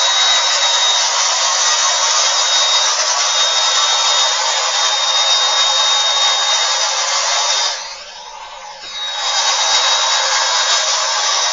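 Bissell MultiClean Allergen Lift-Off Pet carpet cleaner running: a steady loud rushing motor noise with a thin high whine on top. The sound dips for about a second and a half some eight seconds in, then returns to full.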